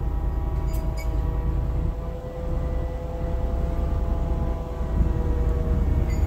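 Forestry bucket truck's hydraulic boom in motion: a steady hydraulic whine that wavers slightly in pitch, over a low rumble.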